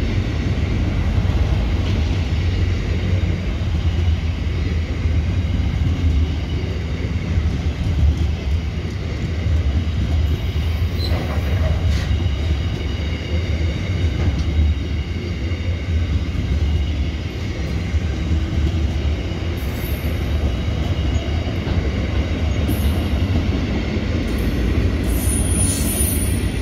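Container freight train wagons rolling past: a steady, loud rumble of steel wheels on the rail, with a faint high wheel squeal running through it.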